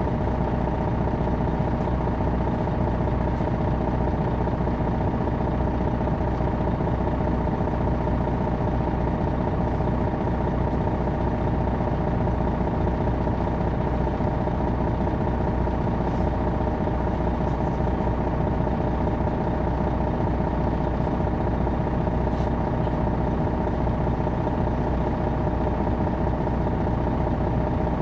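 Detroit Diesel Series 60 inline-six diesel of a 2001 MCI D4000 coach running steadily: a constant drone that holds the same pitch and loudness throughout.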